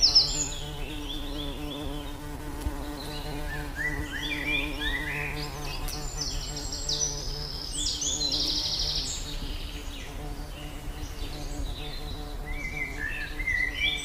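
Birds chirping in short, high, stepped trills that come and go, busiest in the middle and again near the end, over a steady low buzzing hum.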